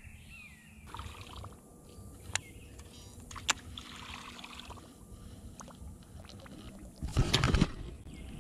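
Light water splashing and trickling around a kayak, with a few short descending bird chirps in the first second and scattered faint clicks. About seven seconds in, a louder burst of noise lasts under a second.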